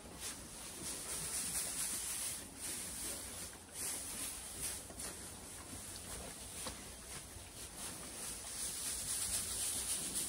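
Loose hay rustling as it is forked up and spread across a pen floor with a pitchfork, in repeated swishing strokes.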